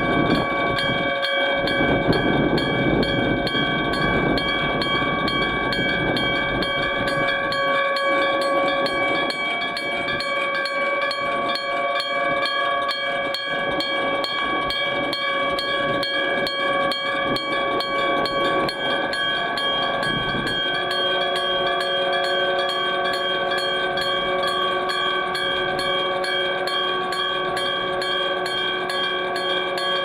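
Iron electric-bell level-crossing alarm ringing with fast, evenly repeated strikes, its several ringing tones sustained throughout. The low rumble of a passing train runs under it for the first twenty seconds or so, then stops, leaving the bell alone.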